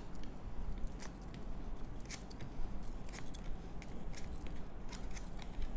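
Tarot cards being handled and dealt out by hand onto a cloth-covered table: a string of light, irregular card clicks and flicks over a low steady hum.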